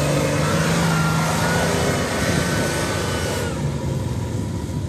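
A 4x4 SUV's engine running hard under load as it climbs a steep sand dune, with a loud hiss over it. About three and a half seconds in, the hiss and the engine ease off.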